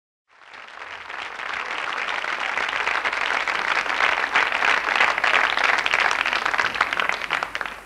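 Studio audience applauding: dense clapping that swells up over the first couple of seconds, holds, and dies away at the very end.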